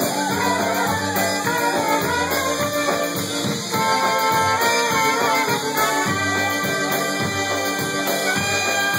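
Live polka band playing an instrumental break led by two trumpets over a steady drum and bass beat, with hands clapping along in time.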